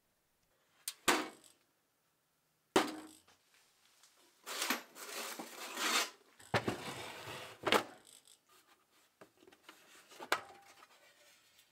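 Steel socket-set cases being handled: a few sharp metal clanks, with a longer stretch of metallic rattling in the middle, as a tin tool case is lifted and set down on a wooden bench.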